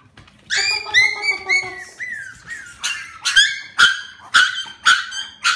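Four-week-old Alaskan Klee Kai–Shiba Inu puppies whining and yelping in high-pitched cries. The cries start about half a second in and turn into a run of sharp yelps, about two a second, in the second half.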